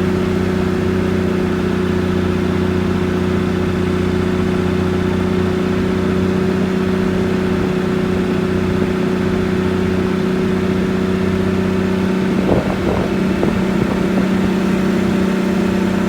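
Unimog truck's diesel engine droning at a steady speed, with a brief knock about twelve seconds in.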